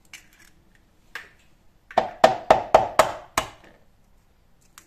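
A duck egg knocked sharply about six times in quick succession, roughly four knocks a second, to crack its hard shell, after a single softer tap about a second in.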